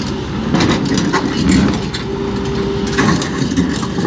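Cat 320D tracked excavator running under load as its bucket digs into hard, rocky soil, with stones knocking and cracking against the bucket. A steady whine sets in about halfway through.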